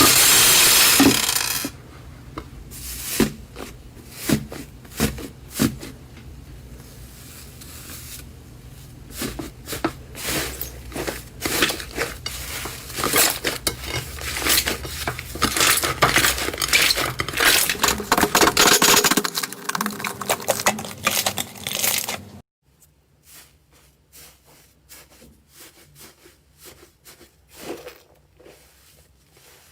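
Slime being pressed and stretched by hand, giving dense clicking and crackling as air pockets pop. A loud crackling burst opens it, and about three-quarters of the way through the clicks turn much softer and sparser.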